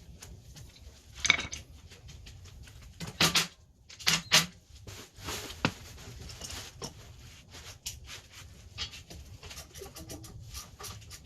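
Hard objects clinking and knocking, like metal hand tools and parts being handled and set down, in irregular small clicks with a few louder clanks in the first half.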